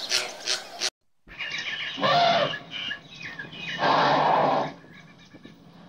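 A flock of flamingos calling, cut off abruptly after about a second. Then small birds chirping, with two louder rushing bursts of under a second each.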